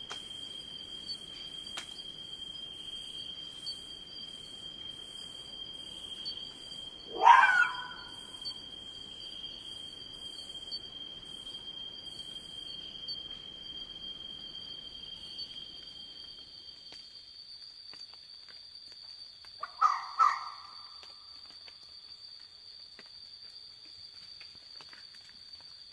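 Red fox calling: one loud rising call about seven seconds in, then two short calls in quick succession about twenty seconds in. Under them runs a steady high buzz of insects, with high pulsed chirps about once a second that stop about halfway through.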